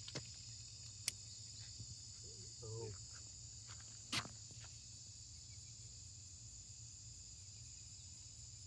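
Steady chorus of crickets trilling at two high pitches, with two sharp clicks about one and four seconds in and a brief faint voice in between.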